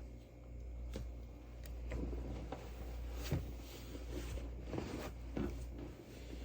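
Irregular light clicks and short rustles from someone working at a desk, spread unevenly with gaps, over a steady low room hum.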